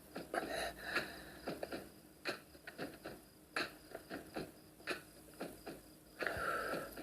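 A series of faint, irregular taps and clicks.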